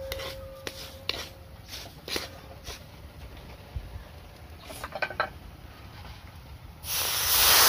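Wooden spatula scraping and tapping granulated sugar across a dry iron wok, a handful of light scrapes and knocks. Near the end a sudden loud rushing hiss starts as water goes into the hot wok onto the sugar.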